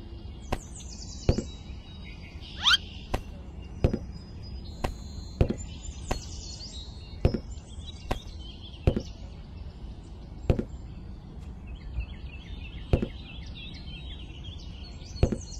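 Light plastic knocks as toy pomegranates are lifted from a miniature tractor trolley and dropped onto the ground one at a time, about a dozen at irregular intervals. Faint bird chirps sound in the background.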